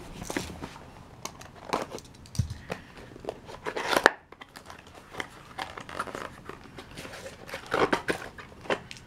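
Packaging rustling and crinkling as hands unpack small accessories from a cardboard box, with irregular clicks and light knocks; the sharpest click comes about four seconds in.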